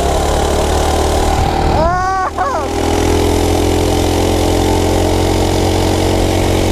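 Coleman mini bike's small single-cylinder four-stroke engine running steadily at speed under heavy wind rush. About two seconds in there is a brief tone that rises then falls.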